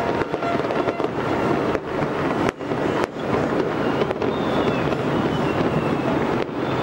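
Many fireworks and firecrackers going off across the city at once: a dense, continuous crackle and popping with a few sharper bangs, and faint whistles in the second half.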